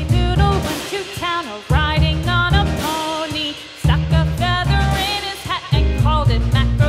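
Upbeat background music with a steady bass beat and a gliding, bending melody.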